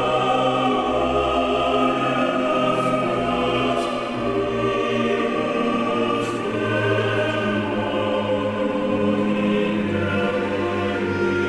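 Background music of a choir singing long held chords, the harmony shifting about four seconds in and again near the end.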